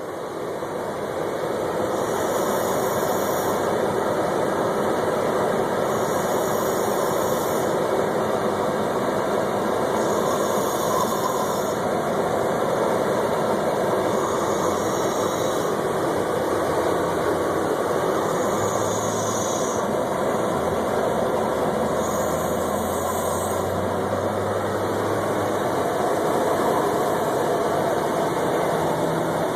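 A person snoring, a breath about every four seconds, over a steady noise.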